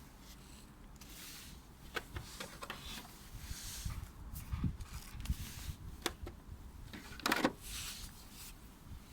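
Packaging and tool being handled: scattered rustling with several sharp clicks and knocks, the loudest about seven seconds in.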